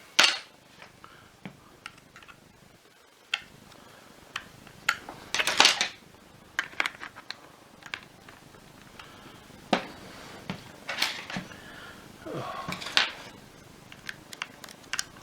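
Scattered clicks, taps and scrapes of plastic parts and hand tools being handled while a vacuum cleaner power nozzle is taken apart, with a few louder knocks and rustles about five and a half seconds in and again near the end.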